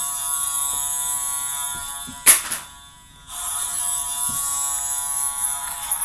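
Boston Bruins ice-hockey goal horn blasting a steady, buzzy tone, broken by a loud click a little over two seconds in, then sounding again about a second later.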